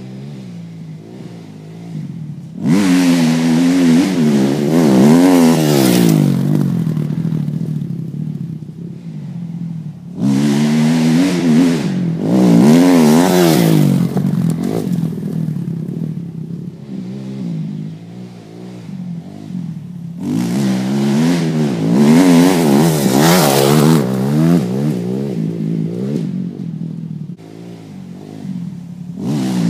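2007 Kawasaki KX250F's four-stroke single-cylinder engine revving up and down through the gears as the dirt bike is ridden hard. It comes loud past three times, about three, ten and twenty seconds in, and fades between passes.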